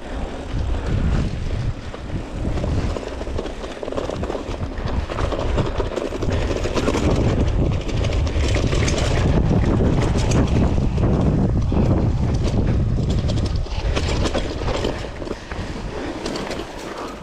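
Mountain bike rolling fast down a dirt and rock trail: tyres crunching over the ground and the bike rattling over bumps, with heavy wind rumble on a handlebar-mounted microphone. Loudest in the middle stretch, easing as the bike slows near the end.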